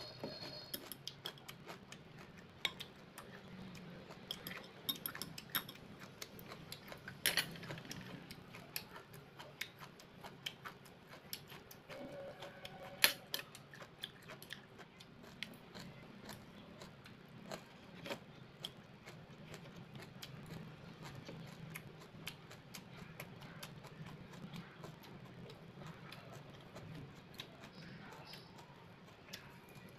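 Metal chopsticks and a spoon clicking against ceramic bowls and plates while eating, with chewing between the clicks over a steady low hum. One sharper clink rings briefly about 13 seconds in.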